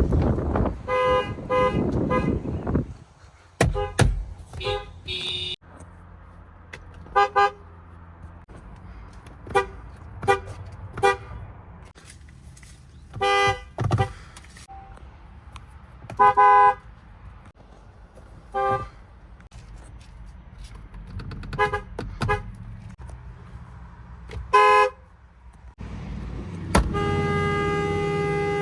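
Horns of Fiat Chrysler (FCA) cars sounded in about a dozen short toots, some doubled, at slightly different pitches; near the end one horn is held in a long steady blast.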